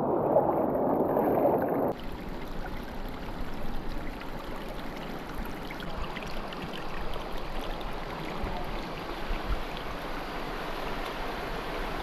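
River water flowing past in a steady rushing hiss. About two seconds in the sound changes abruptly from a duller, lower rush to a brighter, fuller one.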